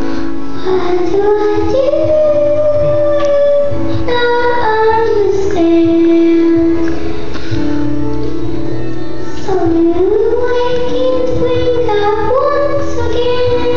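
A child singing a song over instrumental accompaniment, gliding between notes and holding several long ones.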